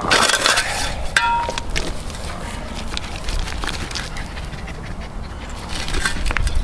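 Terriers panting and snuffling as they nose into a dug-out rat hole, with a short high whine a little over a second in.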